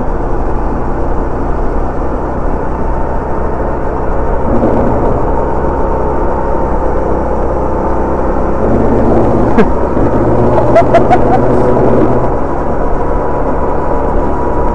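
Rental duo kart's engine heard from the seat while lapping, with wind noise on the microphone. The engine note rises about four and a half seconds in and again around nine seconds as the kart accelerates, and falls back near the end as it slows for a corner. A few sharp clicks sound in between.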